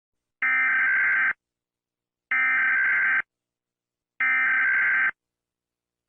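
Three Emergency Alert System SAME digital data bursts, each a harsh, buzzy electronic screech about a second long, sent about two seconds apart as the alert message closes.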